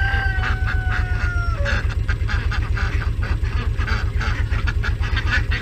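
A flock of domestic ducks quacking repeatedly in short calls, with one drawn-out, slowly falling note near the start. A steady low pulsing hum runs underneath.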